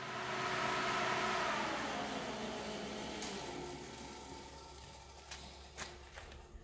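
Faint mechanical whir fading away just after a Chevy 283 V8 on an engine run stand has been switched off. A few light clicks come near the end.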